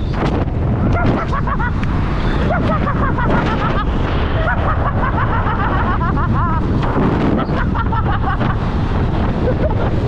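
Wind buffeting the microphone of a rider on an electric motorcycle at speed: a steady, loud rush with a heavy low rumble, with a few faint short chirping glides on top in the first few seconds and again around the middle.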